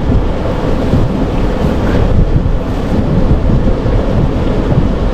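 Wind buffeting the microphone: a loud, uneven low rumble, over the sailboat moving under power.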